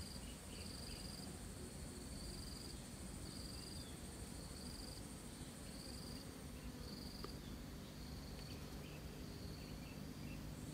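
Insects calling: a short, high, buzzing trill repeated about once a second over a steady high-pitched insect drone.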